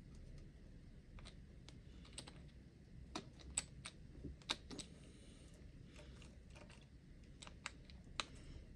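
Faint, irregular small clicks and taps of plastic and metal as an RC car's wheel is held on its hub and its wheel nut is turned on by hand; a few sharper clicks come in the middle and near the end.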